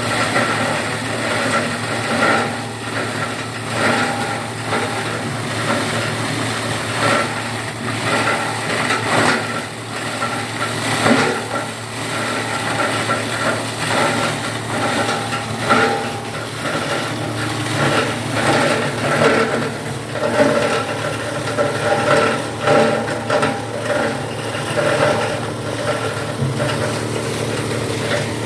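Paper and cardboard shredding machine running steadily, with irregular louder surges and crackles as material passes through the cutters.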